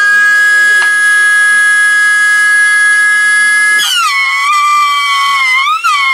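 Motor of a homemade plywood table saw whining steadily at free speed, then dropping sharply in pitch about four seconds in as a wooden strip is fed through and the blade takes the load. The pitch wavers as the feed pressure changes, with a brief rise and fall near the end.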